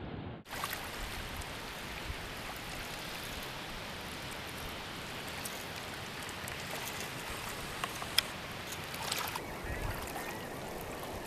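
Steady wash of small waves and wind at the water's edge, with a couple of sharp clicks about eight seconds in.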